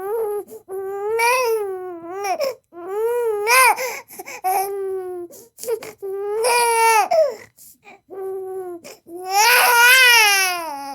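Baby crying: a run of drawn-out wails, each rising and then falling in pitch, with short gaps for breath between them. The longest and loudest wail comes near the end.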